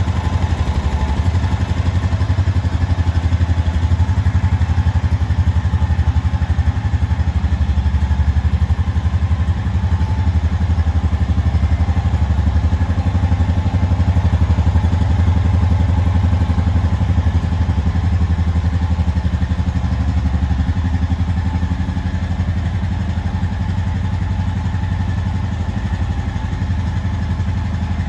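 Honda TRX 520 ATV's 518cc liquid-cooled single-cylinder four-stroke engine running steadily with a low exhaust note and no revving, easing off slightly in loudness near the end.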